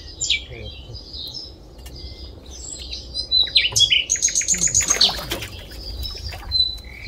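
Small birds chirping and calling in a busy chorus of short high notes, with a fast trill of repeated notes around the middle that is the loudest part.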